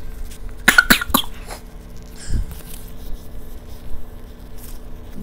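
A person coughing, a short burst of a few coughs about a second in, with a fainter sound a little later, over a faint steady hum.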